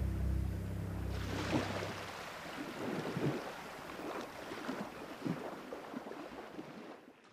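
Small sea waves lapping and washing up onto a shore in uneven surges, fading out at the end.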